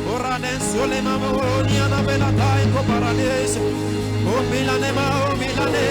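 Worship music: a held low backing note under voices singing without clear words, several of them sliding up in pitch.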